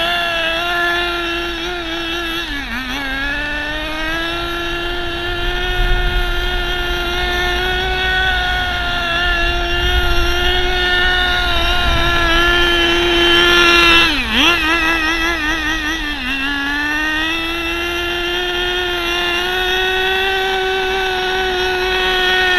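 Tamiya TG10 Mk.1 radio-controlled car's small two-stroke glow (nitro) engine running at a high, steady buzz. Its pitch drops sharply twice, about three seconds in and again about fourteen seconds in, as the throttle is let off and blipped, then climbs back up.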